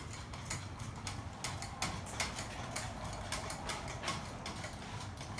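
Irregular light clicks and knocks, two to four a second, over a low steady rumble.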